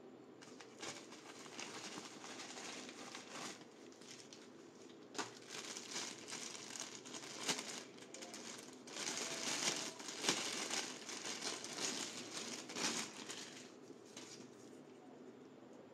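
Plastic packaging crinkling and rustling as a bubble mailer and then a clear plastic bag are handled and opened, with irregular crackles that are loudest around ten seconds in and die away near the end.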